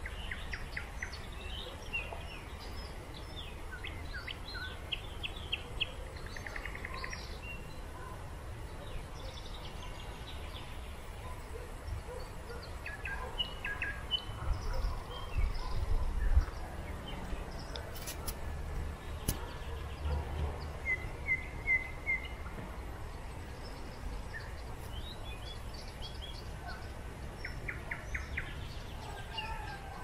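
Several songbirds calling and singing at once: scattered chirps, short trills and quick series of notes, over a steady low rumble, with a few low thuds near the middle.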